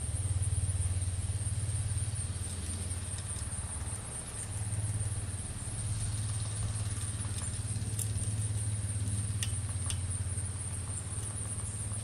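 Steady low engine hum that swells and eases slightly, under a constant faint high-pitched whine, with a few sharp ticks in the last few seconds.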